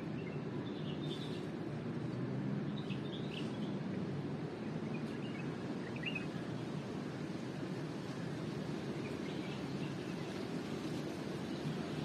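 Steady low outdoor background rumble, with a few faint bird chirps about one, three and six seconds in.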